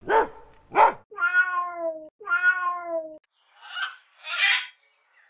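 Cat meowing: two drawn-out meows of about a second each, slightly falling in pitch, after two short sharp sounds and followed by two short breathy sounds.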